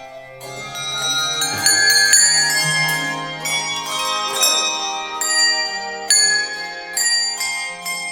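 Handbell ensemble playing a piece: chords of struck handbells, fresh bells sounding about every half second and ringing on over one another.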